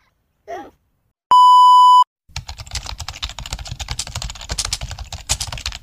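A loud, steady bleep tone lasting under a second, followed by a rapid run of keyboard-typing clicks for about three and a half seconds, synced to the channel's title card being typed out on screen.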